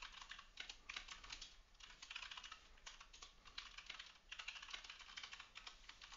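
Faint computer keyboard typing: quick runs of key clicks broken by short pauses.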